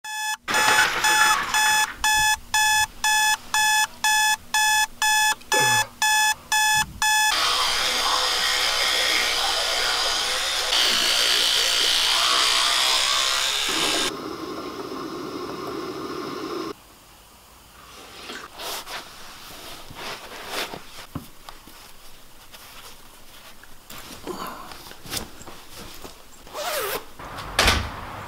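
An alarm clock beeping in quick repeated pulses for about seven seconds. Then a steady rushing hiss, then an electric toothbrush buzzing for a few seconds. Quieter scattered knocks and clicks follow.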